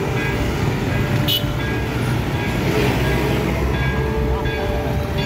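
Road traffic passing close by: a steady low rumble of motor engines, among them a three-wheeler and a motorcycle. A short hiss comes just over a second in.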